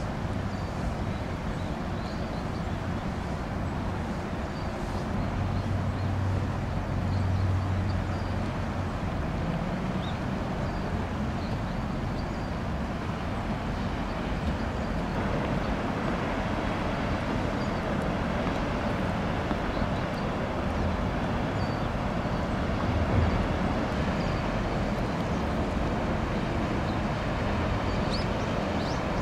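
Steady low rumble of a passing coastal cargo ship's diesel engine under a rushing wash of water and wind; the rumble swells a few seconds in.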